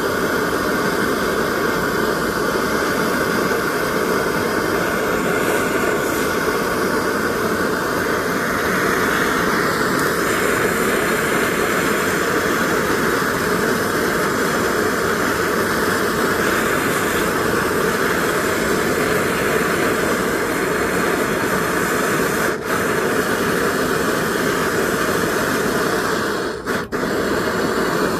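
Handheld gas torch burning with a steady hiss while heating a copper pipe joint for soldering; the sound dips briefly twice in the last few seconds.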